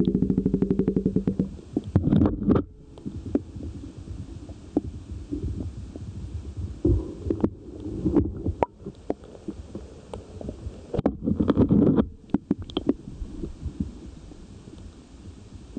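Muffled underwater noise from a submerged camera housing: a low rumble with irregular knocks and clicks. At the start a fast buzzing pulse train stops about a second and a half in, and there are louder clusters of knocks about 2, 8 and 11–12 seconds in.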